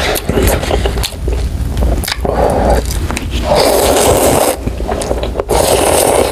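Close-up eating sounds of kimchi ramen noodles: chewing at first, then three loud slurps of noodles, the longest about halfway through.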